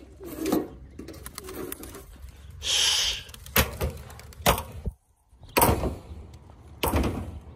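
Pigeons cooing, with several sharp knocks and a brief rush of hissing noise about three seconds in.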